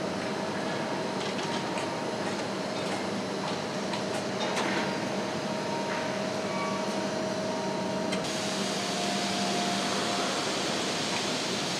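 Steady machinery noise on an engine-block foundry floor: a hum with a few steady tones and occasional faint clicks, joined by a louder hiss about eight seconds in.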